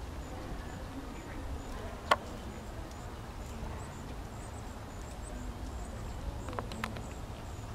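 Steady low outdoor rumble with a single sharp click about two seconds in, and a few fainter clicks near the end.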